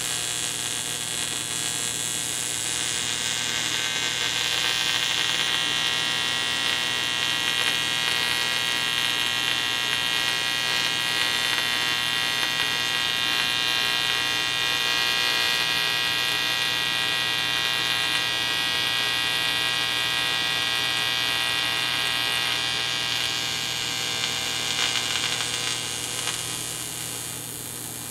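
Electrical buzz of vibrating electric cables: a steady hum made of many stacked tones, with a harsher, brighter edge through most of it that eases off near the end.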